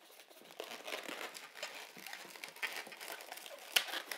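White 260 latex modelling balloon squeaking and rubbing against itself and the fingers as it is twisted into bubbles: a run of irregular short squeaks and crackles, with one sharper squeak near the end.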